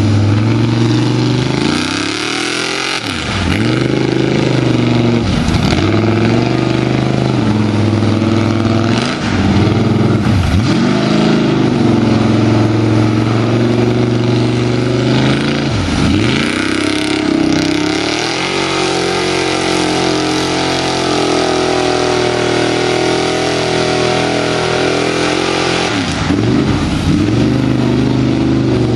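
Lifted Chevy mud truck on 44-inch Bogger tires running hard through a mud pit, its engine held at high revs; about five times the pitch drops sharply and climbs straight back as the throttle is lifted and reapplied.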